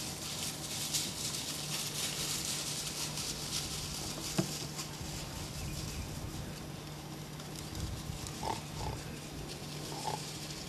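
Wild hogs calling, a few short squealing calls about eight and ten seconds in, over a steady background hiss, with a single sharp knock about four seconds in.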